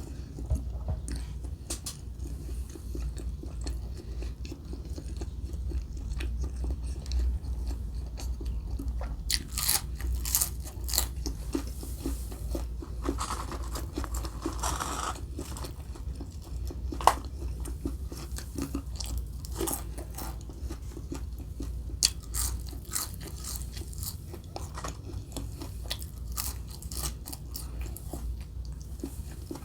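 A person eating fast food close to the microphone: steady chewing and biting with crunchy bites and many small mouth clicks. Two sharper clicks stand out in the second half.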